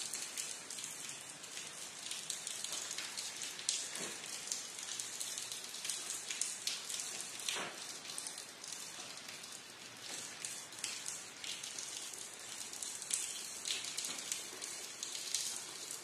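Rain falling steadily: a dense patter of drops hitting a surface, with now and then a single louder drop.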